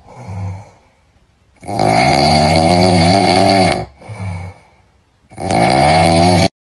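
Loud snoring, added as a sound effect: two long snores, the first about two seconds and the second about a second, each after a quieter breath in.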